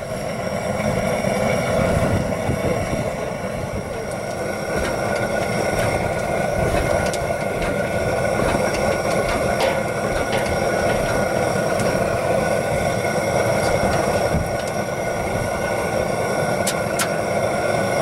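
Propane torch burning steadily as it preheats the hot bulb of a Lanz Bulldog's single-cylinder semi-diesel before starting, with a few sharp metal clinks near the end.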